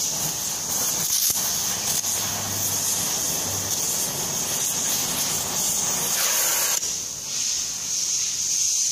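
Hose-fed gas torch burning with a steady hiss, cutting off suddenly near the end.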